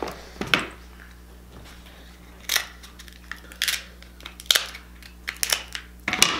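Kitchen scissors cutting through the shell of a cooked king crab leg: several separate sharp crunches about a second apart.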